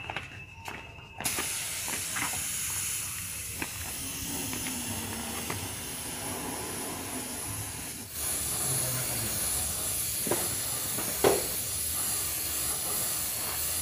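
Compressed-air paint spray gun with a gravity-feed cup spraying paint: a steady hiss that starts about a second in, with a couple of short knocks near the end.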